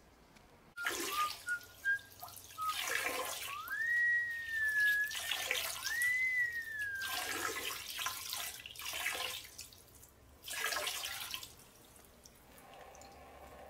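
A man whistling a tune: a few short notes, then two long notes that rise and then fall. Bursts of splashing water come and go between the notes.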